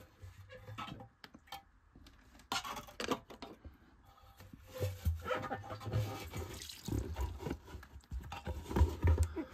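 Old rubber membrane being worked out through the flange opening of a steel hydraulic accumulator tank: irregular wet sloshing and dripping with scattered knocks and thumps, busier in the second half.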